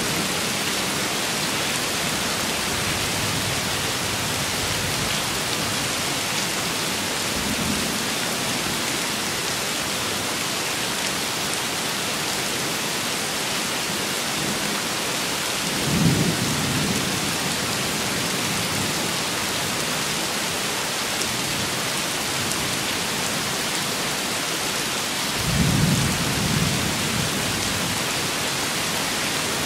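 Steady rain falling, an even hiss, with two brief low rumbles, one about halfway through and one near the end.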